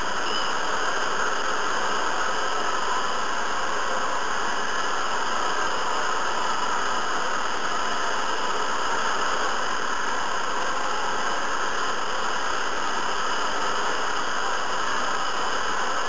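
Hair dryer running steadily: a constant, even hiss of blown air that does not change.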